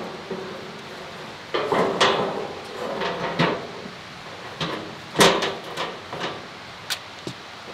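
Metal clunks and knocks from an air compressor's sheet-metal belt guard and its bolts as it is fitted back on and tightened with a wrench: a series of separate sharp knocks with some ringing, the loudest about five seconds in.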